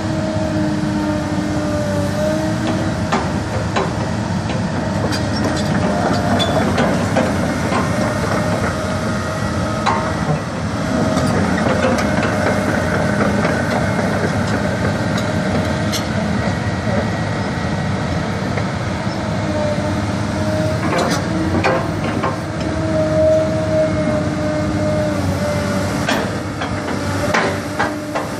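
Komatsu PC230NHD-7 crawler excavator running: the diesel engine and hydraulics hum steadily, with scattered metallic clanks from the steel machine.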